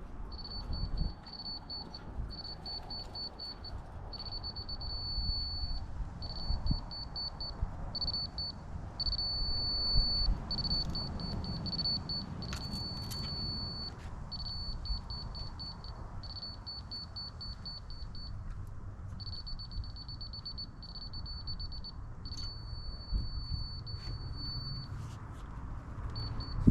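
A high-pitched electronic warning beeper on the earthmoving machinery, sounding in runs of rapid beeps with a few longer held tones, over the low rumble of a diesel engine running.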